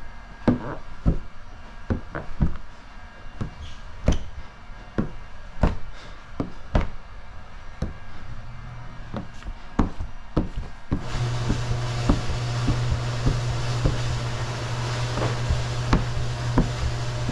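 A plastic squeegee worked over wet paint protection film on a truck hood, giving irregular sharp knocks and rubbing sounds. About eleven seconds in, a steady low hum and hiss comes in under them.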